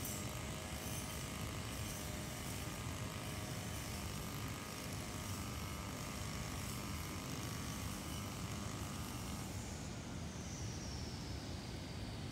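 Brush cutter engine running steadily, its engine tone fading out about nine seconds in and leaving a steady hiss.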